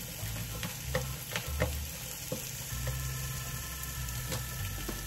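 Sausage frying in a pan: a steady sizzle with scattered short crackles of spitting grease.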